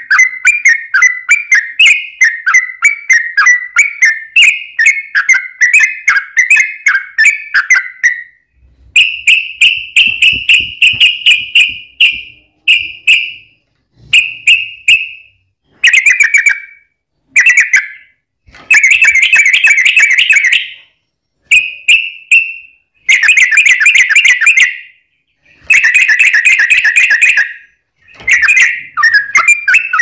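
Yellow-vented bulbul (trucukan) singing loud, rapid, bubbling phrases. An unbroken run lasts about the first eight seconds, then come bursts of a second or two with short pauses between them. A crackle of clicks runs under the song.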